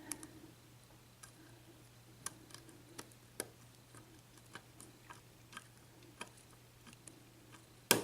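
Faint, irregular clicks and ticks of a lock pick and tension wrench working the pin stack of an Abus padlock cylinder with a Schlage Everest keyway, with pin one still unset. A louder click comes at the very end, over a steady low hum.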